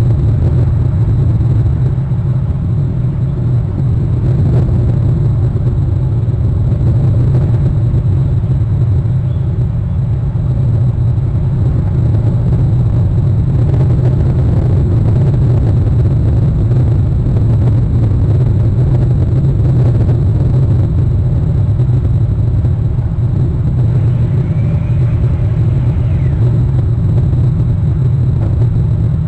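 Steady low rumble of wind buffeting an outdoor nest-camera microphone, with a faint high electronic whine underneath. A faint short whistle rises and falls near the end.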